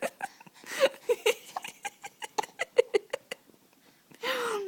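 Baby with the hiccups making small clicking mouth sounds and brief soft vocal blips, then a breathy vocal sound that falls slowly in pitch near the end.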